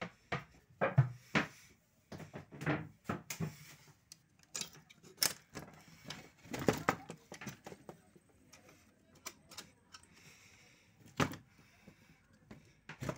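Metal sliding bolt and door being worked by hand: a series of irregular clicks, rattles and knocks, the loudest about a second in and again near eleven seconds.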